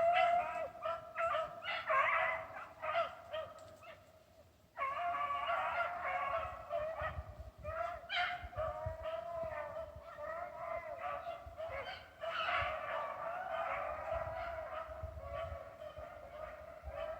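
A pack of hunting dogs baying as they run a rabbit, several voices overlapping almost without a break, with a short lull about four seconds in.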